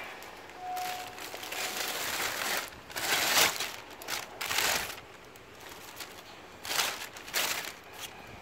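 Thin plastic bag crinkling and rustling as it is handled and pulled open, in a series of bursts, the loudest about three seconds in.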